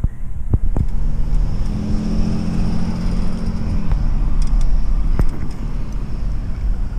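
Street traffic: a car's engine hum passes from about a second and a half in to about four seconds in, over a steady low rumble, with a few sharp clicks.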